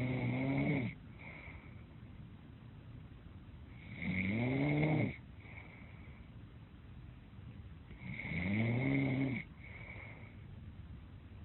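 Slow, regular snoring: three snores about four seconds apart, each about a second long, rising and then falling in pitch, with a thin high whistle in and just after each breath.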